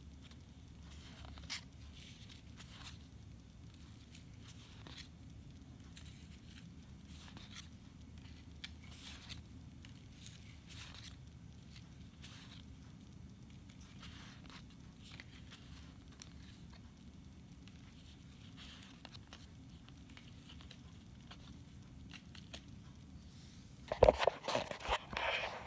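Faint rustling and crinkling of trading card packaging and cards being handled, with scattered soft crackles and a much louder burst of handling noise near the end.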